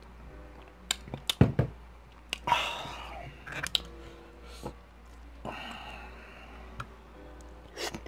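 Close-up eating sounds: drinking and chewing, with a few sharp clicks and knocks of a drink can and a knife and fork against a plate, loudest about a second and a half in, and two short breathy rushes.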